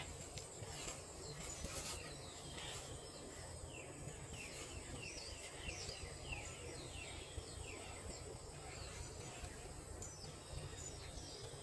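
A bird singing a run of short, downward-slurred notes, about two a second, for several seconds in the middle, over a steady low rumble.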